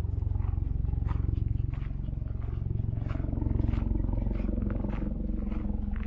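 Walking footsteps, a crisp step about every 0.6 seconds, over a deep, fluctuating rumble of wind buffeting the microphone.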